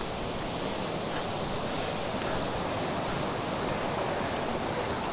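Steady rushing roar of a waterfall's water spilling over its top before the drop.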